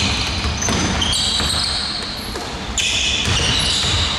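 Basketball shoes squeaking on a hardwood court as players run and cut, a string of short high squeaks, with the thud of a basketball being dribbled.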